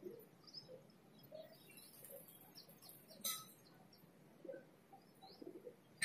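Faint bird calls: scattered short high chirps and a few low coo-like notes, with one sharp click about three seconds in.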